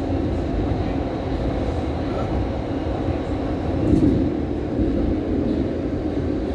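Doha Metro train running through a tunnel, heard from inside the car as a steady low rumble, swelling slightly about four seconds in.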